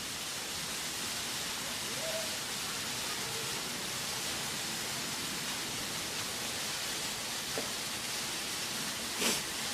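Steady rush of falling water from a partly frozen waterfall, with spray raining down, and a short burst of noise near the end.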